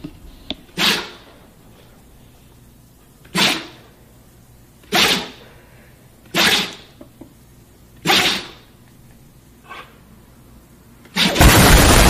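Husky sneezing five times, short sharp bursts one to two and a half seconds apart, then a fainter sixth. Near the end a loud explosion sound effect cuts in and is the loudest thing heard.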